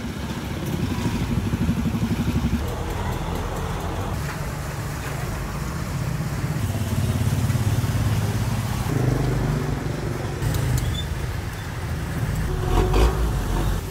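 Motor vehicle engine running steadily at low speed, with a few sharp clinks near the end.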